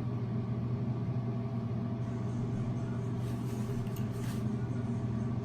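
Steady low electrical or mechanical hum, with a faint soft rustle around four seconds in.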